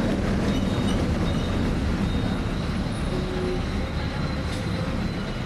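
Steady rumble of a city bus's engine and running gear, heard from inside the cabin while the bus is moving.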